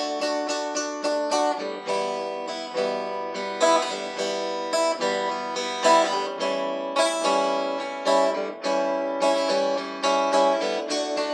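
Instrumental song intro: a guitar picking a steady run of quick, ringing notes, several a second, with no singing yet.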